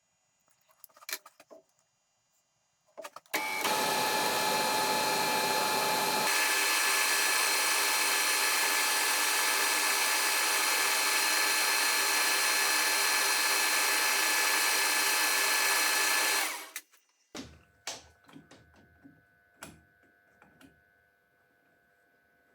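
Lathe running for about thirteen seconds while an aluminium pin is turned, a steady machine noise with a whine. It starts about three seconds in and stops after about sixteen. Scattered clicks and taps come before and after.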